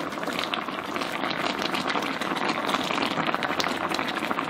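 Pot of spicy pork-and-tofu stew boiling, a steady, dense crackle of small bubbles bursting.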